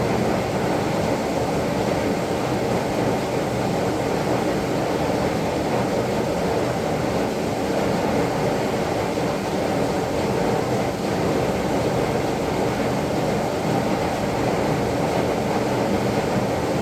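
Heavy rain falling: a steady, even rush of noise that holds without letup.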